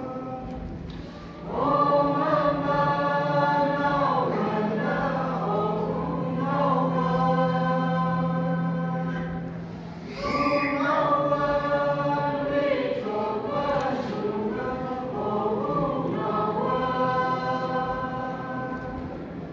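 Mixed choir of men and women singing together in long held notes over a steady low held tone, in two long phrases with a brief break about ten seconds in.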